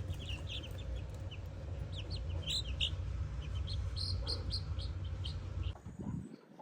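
Chickens clucking, with many short high peeps scattered throughout, over a low rumble that drops away near the end.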